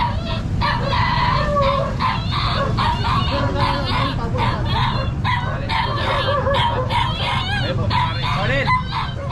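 Many short, high calls from caged animals at a pet market, coming over and over, over a steady din of voices and background noise.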